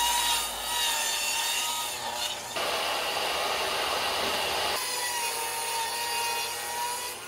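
A saw cutting through wooden framing boards, a steady cutting noise that changes abruptly twice, about two and a half and five seconds in.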